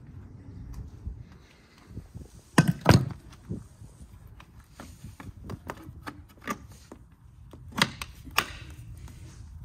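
Blue 32 A commando plug being pushed into a wall-mounted commando socket: hard plastic knocks and clunks from the plug and the socket's hinged lid, the loudest pair about three seconds in and two more near the end.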